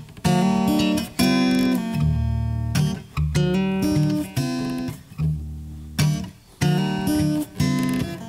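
Background music: acoustic guitar strumming chords, each strum fading before the next.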